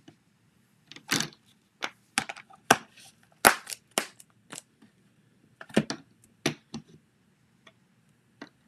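Irregular sharp clicks and knocks of card-stamping supplies being handled and set down on a craft table, about a dozen in all, the loudest about three and a half seconds in.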